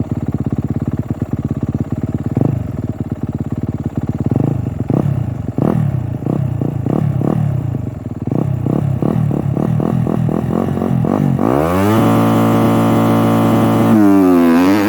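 Motocross bike engine being blipped repeatedly on the throttle, revs rising and falling about once a second as the rider waits to launch. At about 11 seconds in it takes off on a practice start: the revs climb sharply and hold high, then dip and climb again near the end at a gear change.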